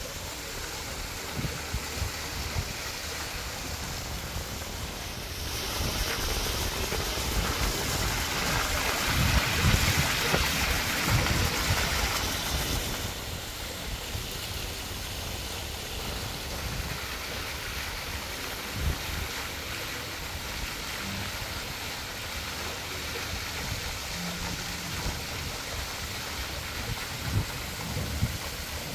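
Water splashing from a garden fountain jet and a small cascade into a stone pond: a steady hiss that swells louder for several seconds in the middle. Low rumbles of wind on the microphone come and go.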